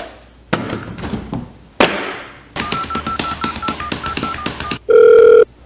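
Two knocks, then a quick run of electronic beeps for about two seconds, ending in one long, loud, steady beep.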